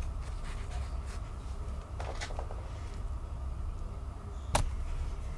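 Handling noise of small plastic toy figures: a few light clicks and taps as they are picked up and turned in the fingers, with one sharper click about four and a half seconds in, over a low steady hum.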